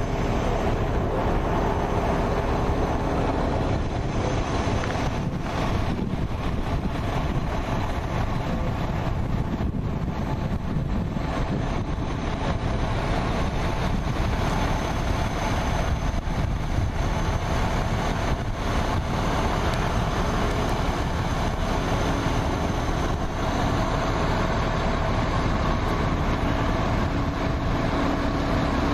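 Fire engines running their pumps to feed the hose lines: a steady mechanical drone with faint high whining tones.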